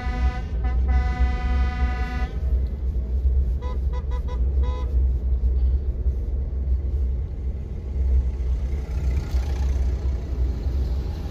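Vehicle horn honking in a parade: a long blast with one short break, then a quick run of about five short toots around four seconds in, over the steady low rumble of a vehicle driving.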